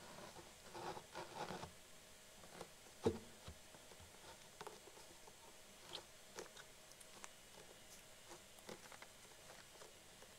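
Faint handling sounds of the replacement plate-amp assembly being worked into the subwoofer cabinet: rustling at first, then scattered small clicks and taps, with one sharper knock about three seconds in.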